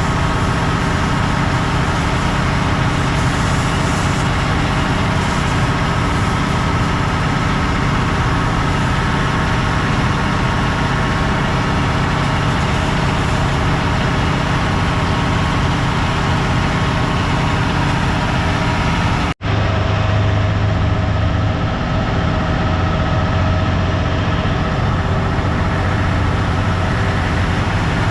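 Heavy diesel engine idling steadily. The sound drops out for an instant about two-thirds of the way through, then continues with a slightly stronger low hum.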